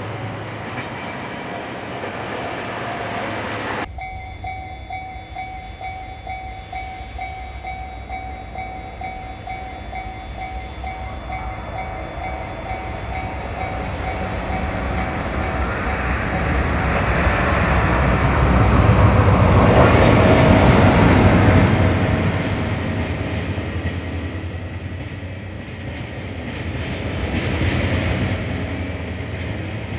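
EH200 twin-unit electric locomotive hauling a train of oil tank cars past a level crossing, with the crossing's warning bell ringing steadily. After an abrupt cut about four seconds in, the train's rumble builds to its loudest about two-thirds of the way through, eases, then swells again near the end as the tank cars roll by.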